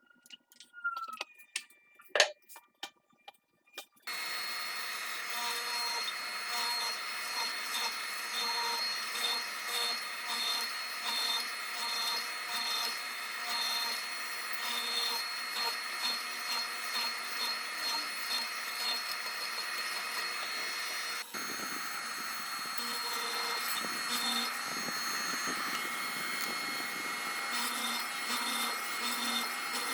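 A few sharp clicks and knocks of wood and tools, then an electric woodworking power tool starts and runs steadily, its sound swelling and dipping about once a second as it works the wood.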